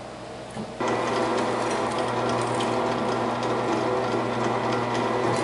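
Benchtop drill press switched on under a second in, its motor running steadily with a hum while the bit drills into a wooden board.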